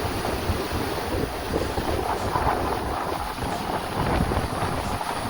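Wind buffeting the microphone outdoors: a steady, gusting noise, deepest and heaviest in the low end.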